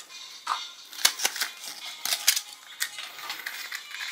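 Plastic toy wrappers and capsule parts crinkling and clicking as they are unwrapped and handled, with a few sharper clicks about one and two seconds in.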